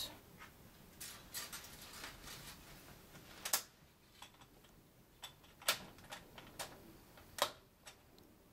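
Irregular small clicks and taps of hardware being handled as the Antec Kuhler H2O 620's CPU block and pump is fitted onto its mounting bracket on the motherboard. A few sharper clicks stand out, a second or two apart.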